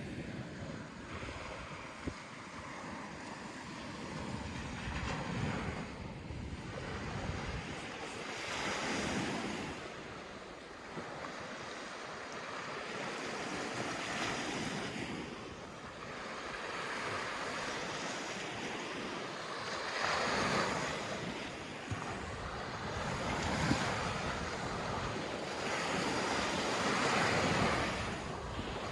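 Sea waves breaking and washing on a sandy beach, the surf swelling and falling back every few seconds, with wind buffeting the microphone.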